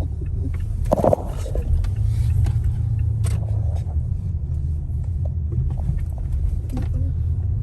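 Steady low rumble of a car being driven, heard from inside the cabin, with a short knock about a second in.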